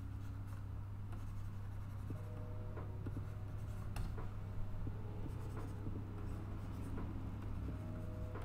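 Stylus nib scratching and tapping on a pen display's screen as sketch strokes are drawn, over a steady low hum.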